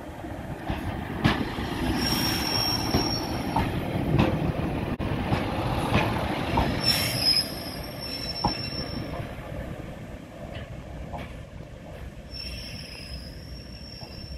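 Class 143 Pacer diesel multiple unit running past at low speed, its wheels squealing high-pitched three times, about two seconds in, around the middle and near the end, over a rumble with sharp clicks from the rail joints.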